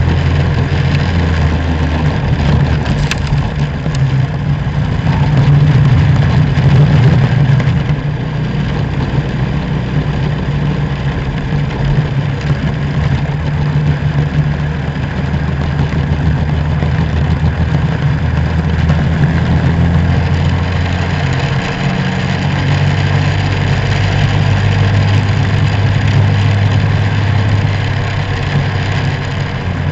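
Racing kart engines at full race speed, heard onboard with other karts close ahead. The engine note rises and falls as the karts lift off and accelerate through the corners.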